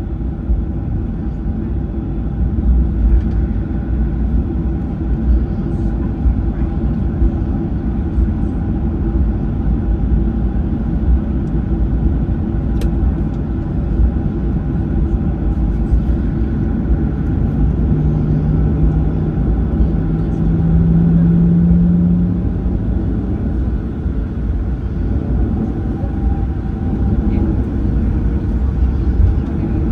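Boeing 737-900ER cabin noise while taxiing, heard from inside the cabin: a steady low rumble from the idling CFM56-7B engines and the rolling airframe, with several steady hums over it. A deeper hum comes in past the middle, rises a little in pitch and then fades away.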